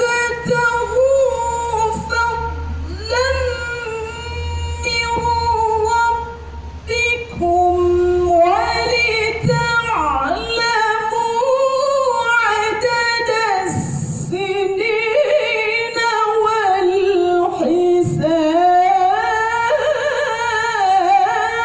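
A woman reciting the Quran in the melodic tilawah style: long held notes with ornamented turns and glides in pitch, carried over loudspeakers. A low hum runs under the first half and stops about halfway through.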